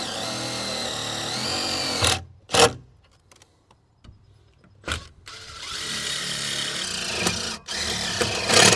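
Power drill driving screws into cabinet panels: a steady whine for about two seconds, a sharp knock, a short pause, then a second, longer run of the drill that lasts until near the end.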